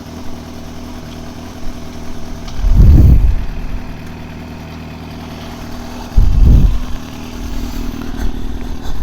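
Yamaha R6 motorcycle engine idling steadily. Two louder low rumbles come about three seconds and six and a half seconds in.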